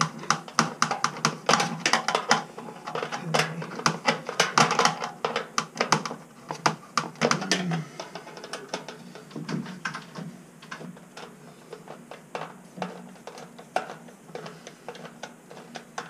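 Hand tools and small metal parts clicking and clattering as they are handled: a dense run of sharp clicks for about the first half, thinning to scattered, quieter clicks after that.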